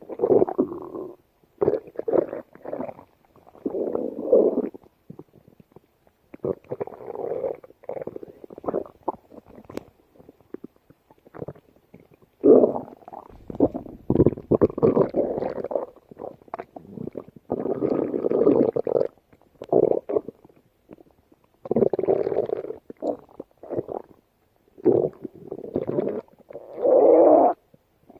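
A stomach growling and gurgling in a long series of separate rumbles with short silent gaps between them, the loudest about halfway through and a smoother, drawn-out growl near the end.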